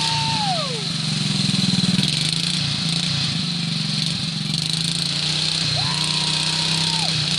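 Modified Craftsman riding mower's small engine running hard while stuck in a mud bog, its rear tires spinning and throwing mud. A high whine from the spinning drive drops away about half a second in, comes back around six seconds in and cuts off again near the end, while the engine keeps running.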